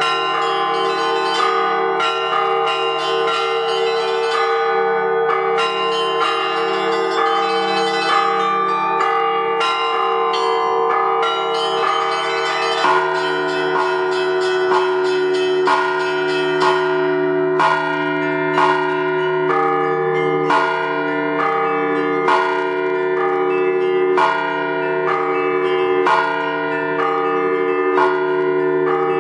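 Ringing on a zvonnitsa, a set of many bells: small bells chiming rapidly over the sustained hum of larger bells. About 13 seconds in the pattern changes, and a deeper bell then strikes every couple of seconds.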